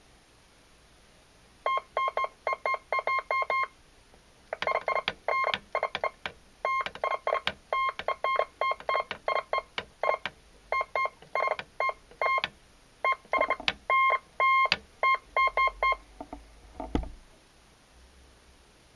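Morse code beeps from a Heathkit HD-10 electronic keyer's sidetone: strings of short dots and longer dashes at one steady pitch, keyed from a Bunnell Gold Bug key, with sharp clicks of the key among them. The sending comes in halting, uneven groups, and a low thump follows near the end.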